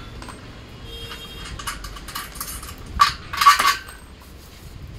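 Metal clinks and knocks from a sewing machine stand's frame and bolts being handled during assembly: a few light ticks, then two louder ringing clanks about three seconds in.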